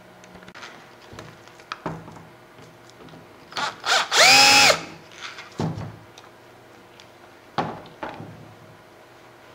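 Cordless screwdriver motor running briefly, for about half a second a little past the middle, its whine rising as it spins up and falling as it stops. Short knocks and clicks of plastic parts being handled come before and after.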